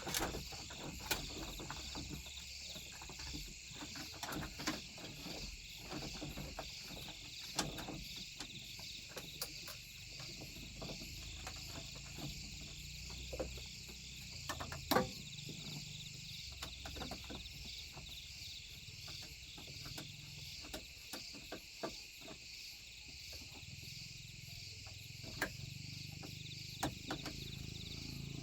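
A steady chorus of insects chirring, with scattered light clicks and knocks over it, the loudest about halfway through.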